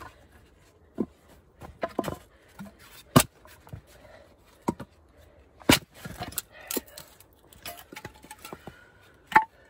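Irregular sharp knocks and clatter of objects being handled, the loudest about three seconds in, with quieter rubbing and rustling between them.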